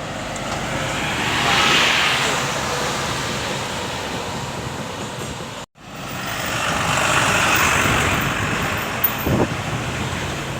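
Road traffic with large buses passing close by. The sound swells as a vehicle goes past about two seconds in and again around seven seconds, with a sudden brief break in the sound between the two.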